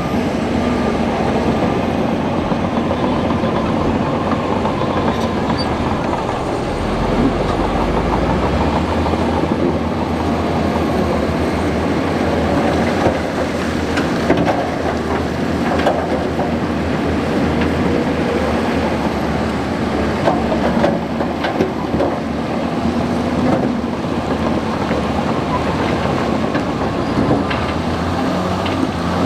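Bulldozer's diesel engine running steadily under load, with irregular clanking from its steel tracks, more of it in the second half.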